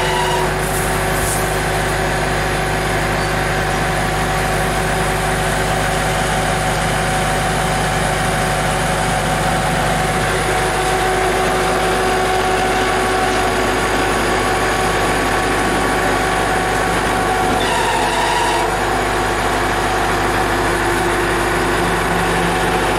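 Tractor engine running steadily with a constant machinery drone made of several steady tones. A brief higher-pitched sound cuts in for about a second near 18 seconds in.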